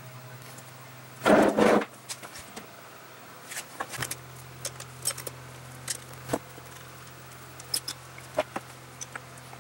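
Irregular sharp metallic clicks and clinks of a ratchet wrench and loose parts as the nuts on a benchtop horizontal milling machine's spindle bearing flange are undone, with a louder clatter of about half a second a little over a second in. A fan hums steadily underneath.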